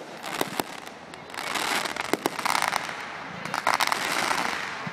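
Aerial fireworks: a string of sharp pops and bangs, then swells of dense crackling from about a second in, with further bursts near the end.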